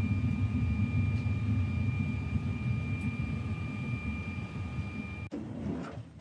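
Airliner cabin noise: a steady low rumble with a thin, steady whine over it. It cuts off abruptly about five seconds in.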